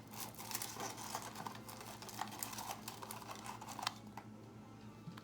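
Trading cards and their pack wrapper being handled: a run of light crinkles and clicks that stops about four seconds in with one sharper click.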